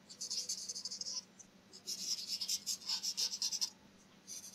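Folded paper blending triangle rubbed quickly back and forth over dry pastel on drawing paper, smudging the pastel strokes. It goes in two spells of rapid scratchy strokes, with a short break about a second in, and stops for the last second or so.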